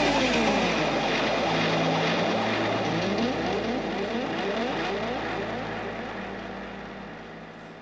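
DJ sound effect: a steady low drone crossed by repeated sweeping pitch glides, rising and falling, that fades out gradually.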